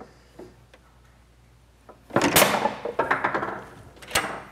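Foosball table in play: a few light clicks, then about two seconds in a loud sudden thunk from a hard shot, with the sound running on for about a second. A single sharp clack comes near the end.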